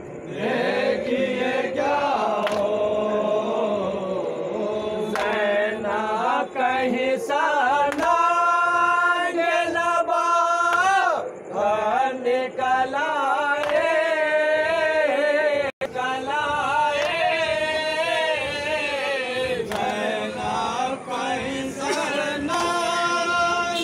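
Men's voices chanting a noha, a Shia mourning lament, in a slow sung melody with long held, wavering notes.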